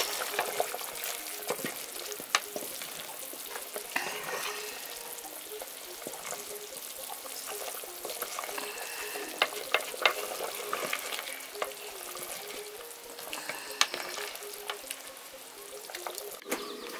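Goat stew bubbling in an aluminium saucepan while a wooden spoon stirs it, with scattered scrapes and knocks of the spoon against the pot.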